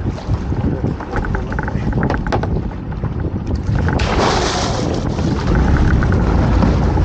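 A small boat running, with wind on the microphone. A few knocks come about two seconds in, then about four seconds in a lobster pot splashes into the sea as it goes over the side.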